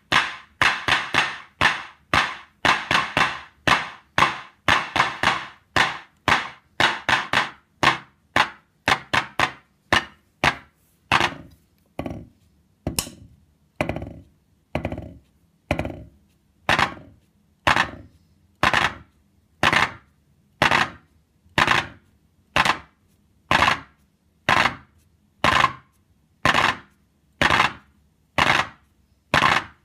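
Soviet Lel KL analog clapper pad triggered by drumstick taps, giving electronic handclap sounds: noisy claps with a short decay. Quick runs of several claps a second at first, then a steady clap about once a second, the claps getting darker and less bright partway through as the knob settings change.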